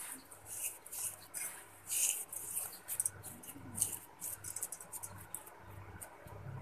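Fingers rubbing butter into flour and sugar in a stainless steel bowl: irregular rustling and scratching as the hand works through the flour against the metal.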